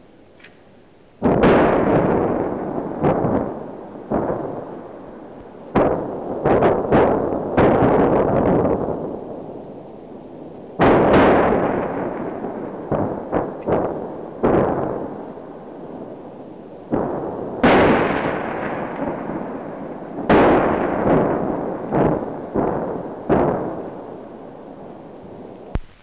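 A long series of blasts, about twenty, each starting suddenly and dying away over a second or more, some coming in quick clusters of three or four.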